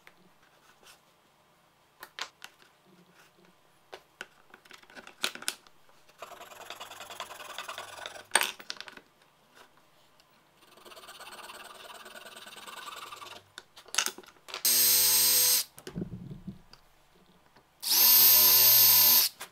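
Scattered light clicks and taps of plywood pieces, then a flush-cut hand saw rasping through a wooden dowel in two stretches of sawing. Near the end a cordless drill runs in two short bursts of steady motor whine, the second longer and the loudest.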